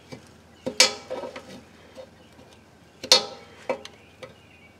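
Screwdriver tip prying stuck crushed-aluminum crush gaskets off the front differential's drain and fill plugs: sharp metallic clicks, the loudest about a second in and again near three seconds, with lighter ticks between.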